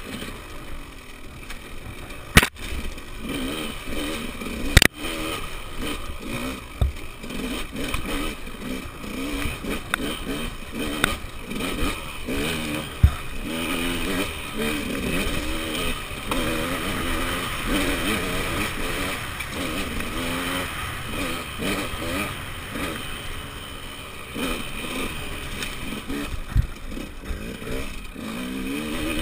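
Enduro dirt bike engine running under load on a rough trail, its revs rising and falling constantly as the throttle is worked. Two sharp knocks come about two and a half and five seconds in.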